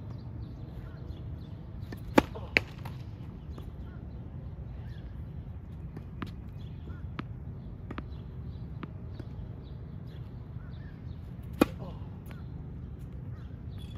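Sharp knocks: two close together about two seconds in and a louder single one near the end, with fainter ticks between, over a steady low rumble.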